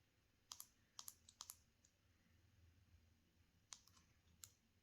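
Faint, sharp clicks in two clusters, about ten in all: the one-touch power button of a small Olight Gober clip-on light being pressed repeatedly to cycle through its modes.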